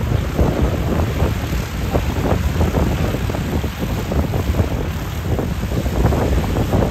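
Strong wind buffeting the microphone over the running engine and propeller of an Aviat Husky light taildragger taxiing past.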